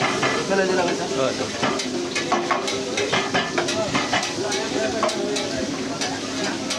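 Batter-coated hilsa fish pieces sizzling as they fry in oil on a large pan, with many short metal clicks and scrapes of a spoon or spatula against the pan and oil bowl.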